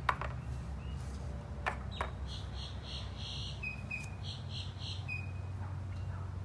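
Three sharp taps of checker pieces on the board, then a rapid run of high chirps lasting about three seconds, over a steady low hum.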